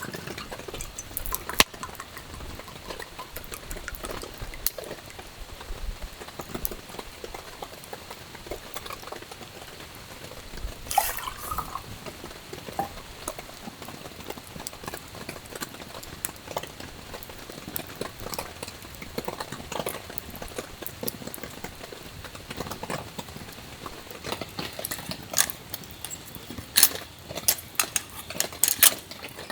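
Wood campfire crackling, with irregular sharp pops and clicks over a faint hiss.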